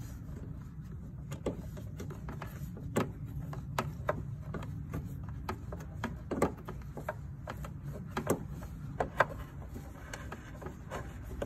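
Irregular small clicks and taps of screws being refitted and tightened into the plastic tail-light housing of a Daihatsu Terios Kid, over a steady low hum.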